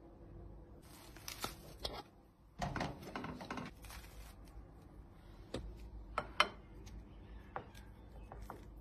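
A crusty loaf of bread being torn apart by hand, the crust crackling and the crumb ripping in two dense bursts, followed by a few separate sharp crackles.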